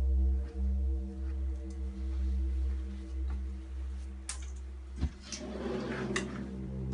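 Low droning background music of sustained tones, shifting to a different chord about five seconds in. A few sharp clicks come over it in the second half, with a short stretch of rustling near the end.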